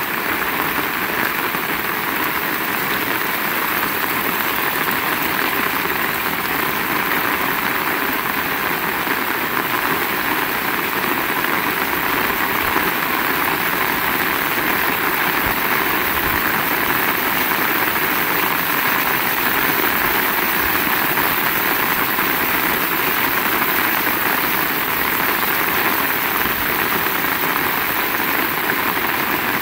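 Heavy rain falling steadily: a dense, even downpour with no let-up.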